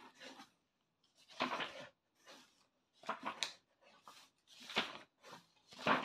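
Pages of a thick book being leafed through and handled: about six short, soft, irregular rustles.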